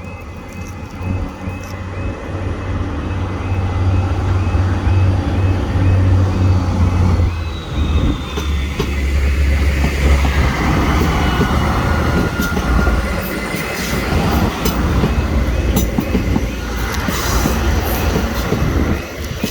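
Northern Ireland Railways diesel multiple-unit train passing through the station. Its engines and wheels make a loud, heavy rumble that builds over the first few seconds, shifts in tone about a third of the way through, and eases just before the end.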